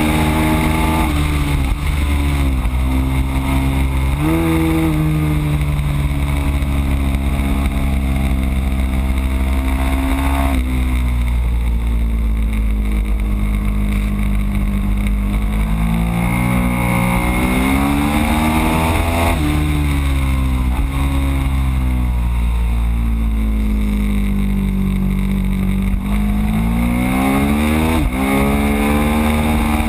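Ducati Streetfighter's L-twin engine at race pace, heard from a camera on the bike: the revs climb and fall through gear changes and corners, with several sudden jumps in pitch. A steady low wind rumble on the microphone runs underneath.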